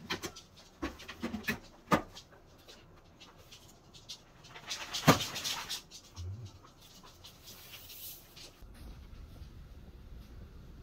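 Clicks and knocks of a humidifier's stainless steel water bowl and plastic body being handled and fitted together, with a sharp clack about five seconds in as the lid goes on. Near the end a faint low steady hum takes over.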